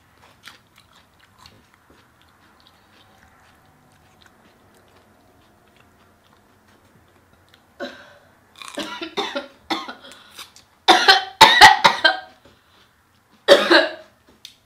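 A person coughing in a string of short, harsh coughs with some throat clearing, loudest about two-thirds of the way in. Before that there are a few seconds of faint chewing.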